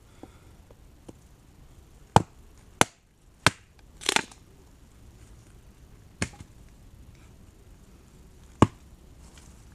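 Gränsfors Bruks forest axe splitting wood held in one hand: six sharp, separate strikes at uneven intervals, the one about four seconds in longer and rougher than the others.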